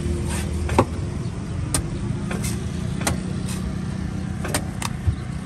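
Cleaver chopping the husk of a green coconut: about eight or nine sharp strokes at an uneven pace, over a steady low rumble of street traffic.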